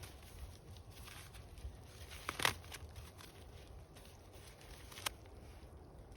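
Faint rustling and crunching handling noises, with a sharp click about two and a half seconds in and another short click about five seconds in.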